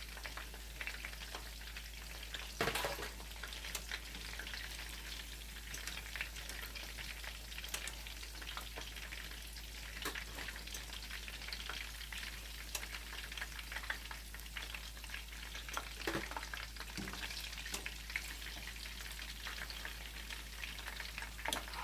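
Chicken cutlets frying in hot oil: a steady sizzle full of small crackles and pops, with a few sharper clicks, the loudest about three seconds in.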